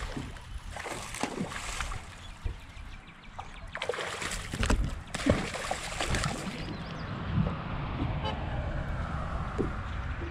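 Wind buffeting the microphone, then a vehicle passing on a nearby road, its tyre noise swelling and fading over the last few seconds.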